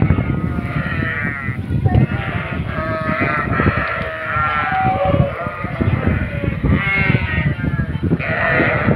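A large flock of sheep bleating, many calls overlapping without a break.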